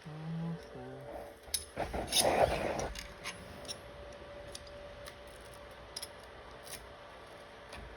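Small metal repair tools clicking and scraping against a smartphone during disassembly, with a louder scrape about two seconds in and scattered light clicks afterwards.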